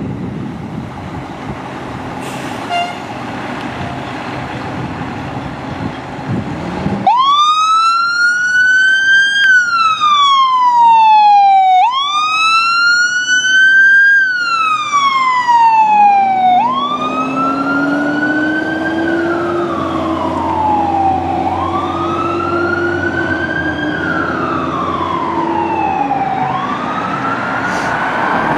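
Sutphen SP95 tower ladder fire truck responding: its engine rumbles, then about seven seconds in its siren starts wailing, rising and falling in slow cycles of about five seconds. About halfway through, a lower tone rises and holds under the wail for several seconds before dropping away.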